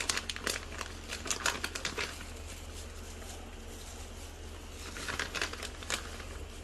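Quiet clicks and wet crackles in two bursts as marinated fish slices are slid one by one into gently simmering broth, over a steady low hum.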